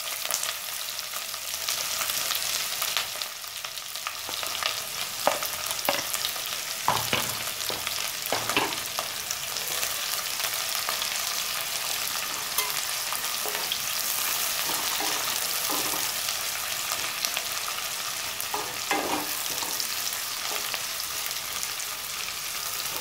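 Sliced onions frying in hot mustard oil in a kadhai, a steady sizzle. A spatula scrapes and knocks against the pan now and then as the onions are stirred.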